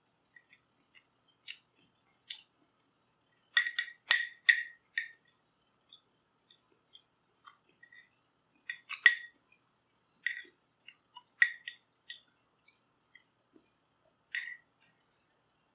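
Metal utensil clinking and scraping against the inside of a glass mason jar while scooping, in several bursts of sharp, ringing clinks, the loudest about four and nine seconds in.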